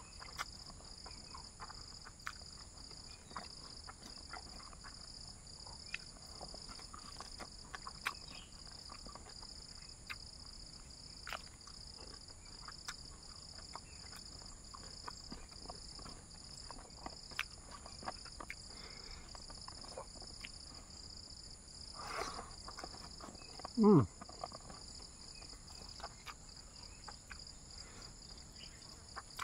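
Hand-eating and chewing sounds, with small wet clicks and smacks scattered throughout, over a steady high-pitched insect chorus. About 24 s in there is one loud, short sound that slides down in pitch.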